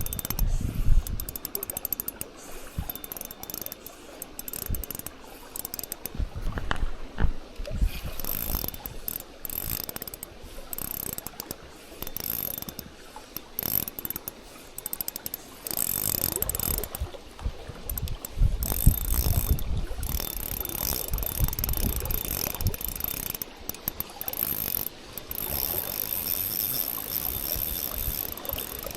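Spinning reel being cranked, its gears clicking and whirring steadily as a lure is retrieved, with gusts of wind buffeting the microphone.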